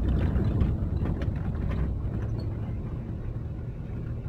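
Vehicle driving slowly over a rough dirt road, heard from inside the cab: a steady low rumble, with a few short knocks and rattles in the first two seconds.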